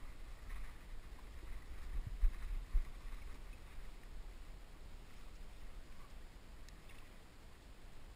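Low steady rumble at the side of a boat, with faint water sounds from a striped bass held in the water, and two soft knocks a little over two seconds in.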